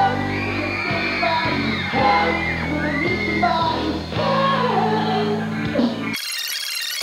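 Rock band playing a song, with a male lead singer singing a melody over guitar and bass. About six seconds in, the sound cuts abruptly to a thin, tinny sound with no bass.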